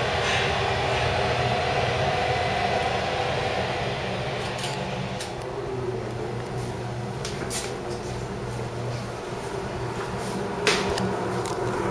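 Steady hum of ventilation fans, with a few sharp clicks and knocks; the loudest knock comes near the end.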